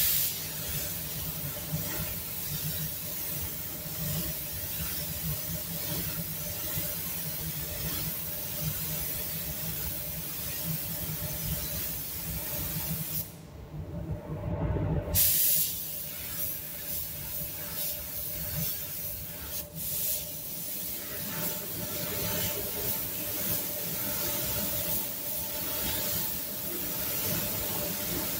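Compressed-air spray gun hissing steadily as clear coat is sprayed, over the constant hum of a paint booth's ventilation. Around midway the hiss stops for about two seconds, when the trigger is released, then starts again.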